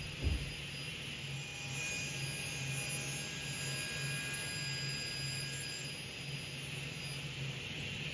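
Sliding table saw running steadily with its dust extraction, a continuous whir with a pulsing low hum, as short profiled moulding strips are cut. A few knocks of wood just at the start.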